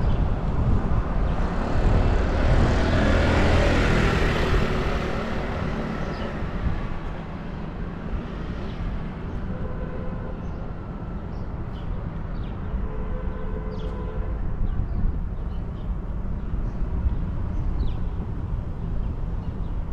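City street traffic: a vehicle passes, loudest a few seconds in, then a steady traffic hum continues with short, faint high chirps.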